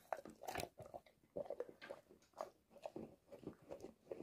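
A Cane Corso eating crumbly cake off a carpet: faint, irregular chewing and crunching, several short bites a second.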